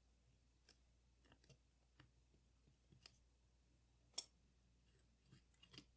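Faint, scattered clicks of small metal parts and tools being handled during disassembly of a Leica IIIF rangefinder camera, with one sharper click about four seconds in and quicker clicks near the end.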